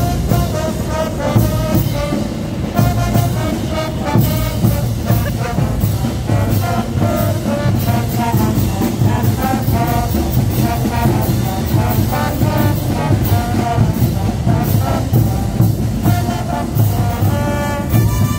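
Bolivian brass band playing caporales music: a brass melody of short repeated notes over tubas and a steady drum beat.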